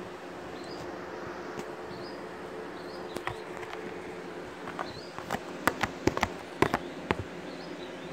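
A goat nosing and mouthing a phone close to the microphone makes a run of sharp clicks and knocks from about five seconds in. Under it runs a steady low buzz, and a small bird gives short high chirps about once a second.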